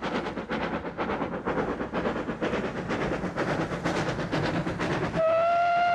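Steam locomotive working a train, its exhaust beating in a steady rhythm, then about five seconds in its whistle sounding one long steady note.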